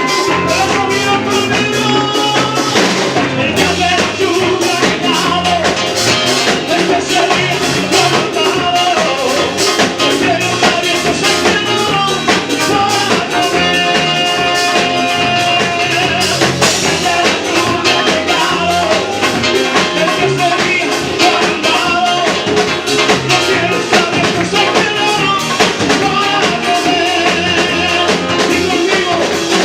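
Live praise music: a band with a drum kit playing a steady beat, with singing over it.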